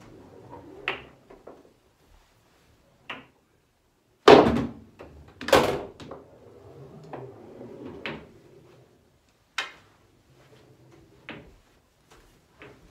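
Knocks and clicks of play on a small home pool table: two heavy thuds about four and five and a half seconds in are the loudest, then several sharp, separate clacks of cue and balls through the rest.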